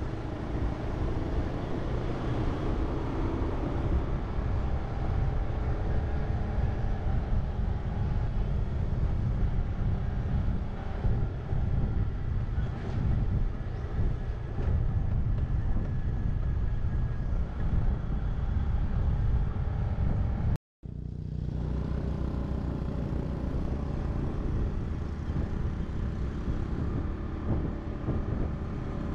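Steady low rumble of a moving road vehicle. It cuts out completely for a moment about twenty seconds in, then resumes.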